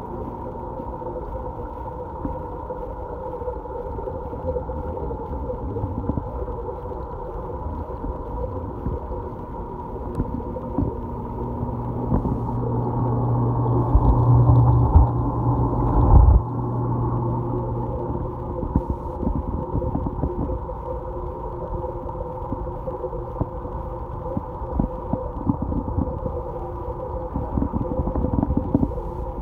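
Steady, muffled hum of a reef aquarium's water pumps heard underwater, with scattered low knocks. It swells louder about halfway through, with a strong low hum and a couple of low thumps.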